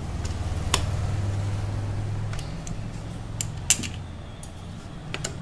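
Scattered sharp metallic clicks and taps as parts are handled on a scooter's transmission cover, the loudest about three and a half seconds in, over a steady low hum.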